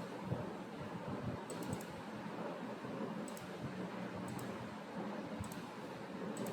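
Computer mouse clicking in small groups of two or three quick clicks, every second or so, over a steady hiss of room noise.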